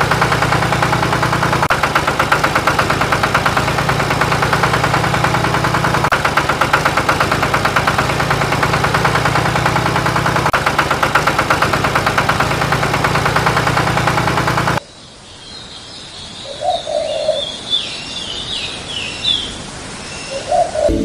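An engine-like running sound with rapid, even knocking pulses, like a small tractor engine idling. It cuts off abruptly about fifteen seconds in, leaving quieter outdoor background with a few short bird chirps.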